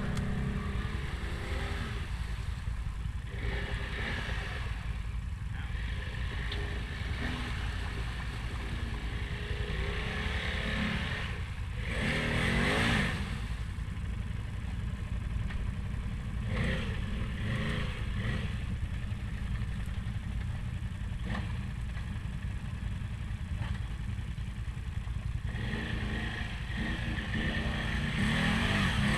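Can-Am off-road vehicle engine running steadily, with a sharp rev about twelve seconds in and rising again near the end.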